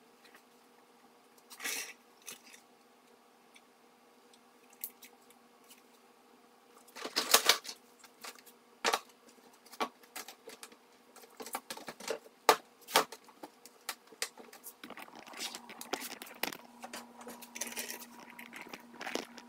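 Handling noises at a taped-over car bumper opening: scattered clicks, taps and knocks, the loudest about seven seconds in, then a quicker run of small scratchy sounds over the last few seconds, over a faint steady hum.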